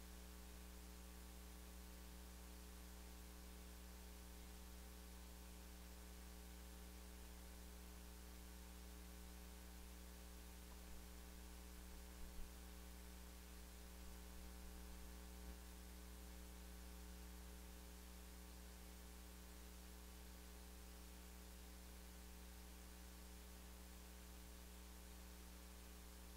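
Near silence: a faint, steady electrical mains hum with hiss, and a few faint clicks near the middle.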